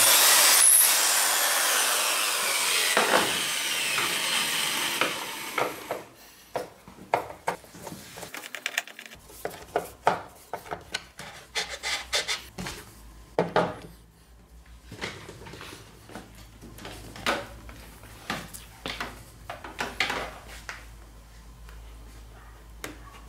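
Electric drill boring into a small wooden block, its noise fading away over the first five or six seconds. Then a run of short knocks and scrapes as the wooden block and a phone are handled and set down on a wooden desk.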